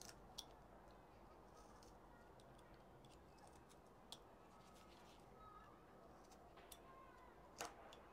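Faint, sharp clicks of a small palm-handled carving chisel cutting straight down into a wood block, about five cuts scattered through, the loudest near the end, over a faint low background hum.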